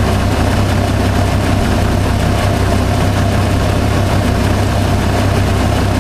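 1990 Jeep Cherokee engine idling steadily: an even low hum with a faint constant tone above it.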